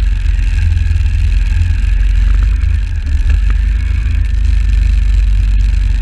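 Can-Am 1000R XMR ATV's V-twin engine running steadily as it drives through shallow muddy water, with water splashing under the tyres and a heavy low rumble.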